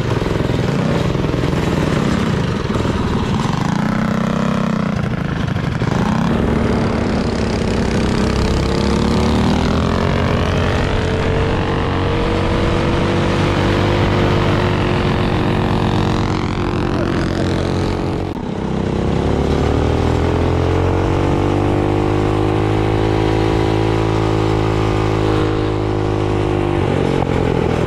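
Small single-cylinder four-stroke minibike engine running under throttle while riding, its pitch rising and falling with the revs. It drops off briefly about two-thirds of the way through, then climbs again. Wind rushes over the microphone.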